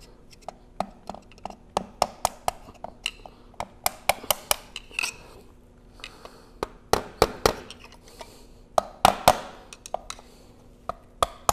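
Small hammer tapping a screwdriver held against a snap ring: many light, sharp metallic taps in irregular runs, driving the ring into its groove in a Vilter screw compressor's shaft seal housing.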